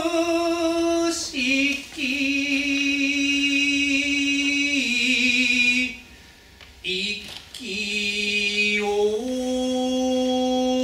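Awaji danjiri-uta, a joruri-style festival chant, sung unaccompanied by a single male voice. He holds long drawn-out notes that step down in pitch, breaks off for a breath about six seconds in, then comes back in low and climbs again in steps.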